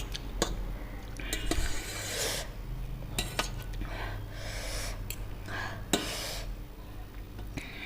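Close-up eating sounds: a utensil clinking and scraping against a bowl or plate a handful of times, with short bursts of noisy eating sound between the clicks.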